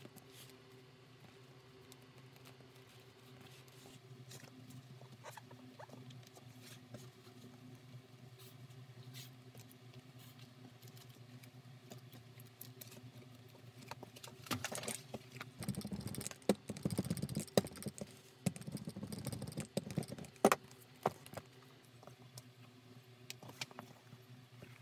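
A handmade leather bag with a fabric lining being handled: soft rustling and small clicks. Past the middle comes several seconds of louder crinkling and scuffing of the material with a few sharp clicks. A low steady hum runs underneath.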